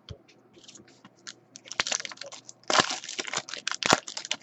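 A foil trading-card pack wrapper crinkling and tearing as a pack is opened, with cards being handled. The crackling is sparse at first and comes thick and fast from about a second and a half in.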